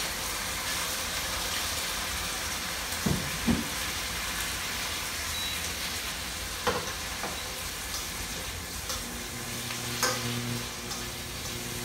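Marinated pork sizzling as it is sautéed in hot oil in a stainless steel wok, with a metal spoon knocking against the pan a few times. A low steady hum comes in near the end, as the wok goes back onto the induction cooktop.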